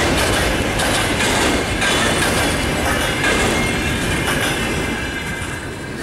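Freight train wagons rolling past on the rails, their wheels clacking over the rail joints with a thin wheel squeal above the rumble. The sound fades near the end as the last wagons go by.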